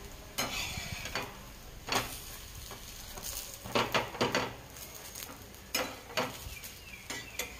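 Flatbread frying in oil on a flat griddle, with a steady sizzle under about eight short scrapes and knocks of a spatula pressing it and turning it over on the griddle.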